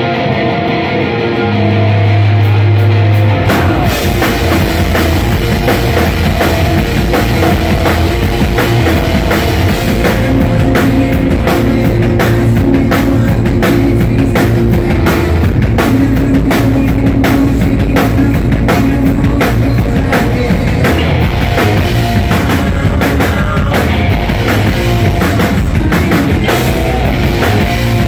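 Live rock band with electric guitars, bass and drum kit playing loud through a PA. A held low guitar chord rings for the first few seconds, then the drums come in about three and a half seconds in with a steady driving beat.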